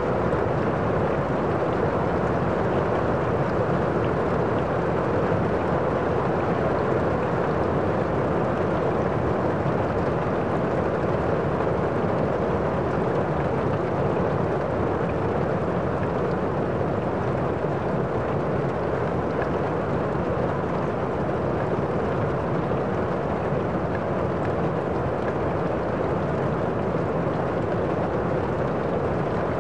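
Steady, even rushing noise at a constant level, with no breaks or distinct events.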